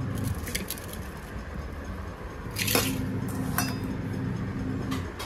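A few light clicks and knocks of steel bowls being handled as ingredients are set out, the sharpest about two and a half seconds in, over a low steady hum.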